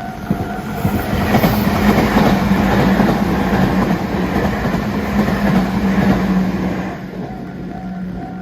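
Meitetsu electric train passing over a level crossing, its wheels clattering on the rails for about six seconds before fading near the end. The crossing's alarm keeps ringing in short repeated tones, heard plainly at the start and again as the train noise dies away.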